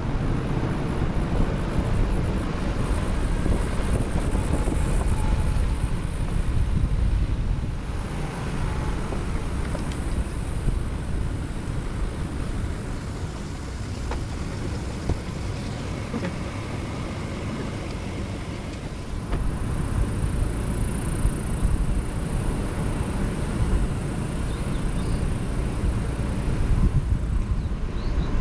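Toyota Tacoma pickup driving slowly on a dirt road: a steady low rumble of engine and tyres. It drops somewhat in level about eight seconds in and comes back up near twenty seconds.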